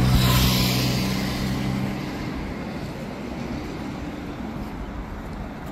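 A large vehicle passing close by and moving away: a low engine hum with a rushing hiss, loudest at the start and fading over the next couple of seconds, leaving a steady background rumble.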